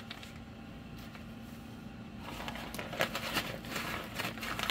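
A faint steady low hum, then from about two seconds in, light rustling and a few short clicks as a hand takes hold of the electric hand mixer resting in the batter bowl.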